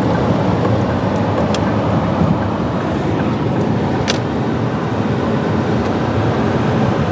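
Truck driving, heard from inside the cab: a steady rush of road and engine noise, with a brief click about four seconds in.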